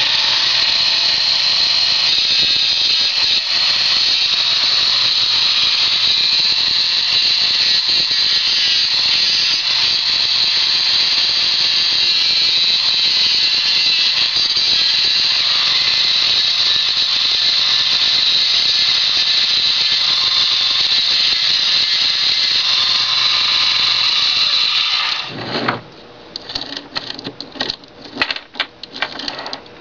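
12-volt electric chainsaw chain sharpener running, its small grinding wheel grinding the saw chain's cutter teeth with a steady, high-pitched grinding whine. It stops about 25 seconds in, leaving light clicks and rattles.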